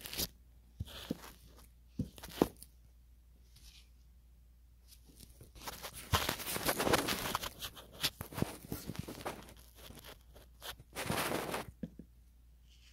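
Plastic insulation of a machine-slit cord being torn open by hand as the copper wire is pulled out: a few sharp knocks at first, then a long rough tearing stretch in the middle and a shorter one near the end.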